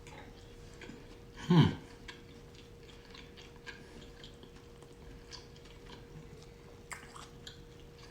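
Close-up chewing of a crispy fried chicken sandwich: faint wet clicks and crunches of mouth sounds. About a second and a half in comes one short, loud hummed 'mm', falling in pitch.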